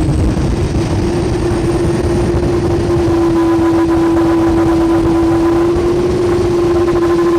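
Jet airliner's engines running, a steady whining tone over a deep rumble.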